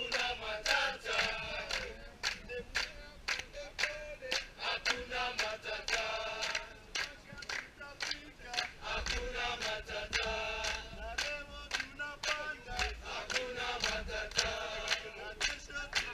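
A group of men singing and chanting together as a chorus, with steady rhythmic hand clapping.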